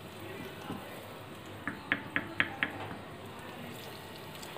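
Hot oil sizzling quietly around a batter-coated chicken wing in a deep-frying pan, with a quick run of five sharp pops about two seconds in.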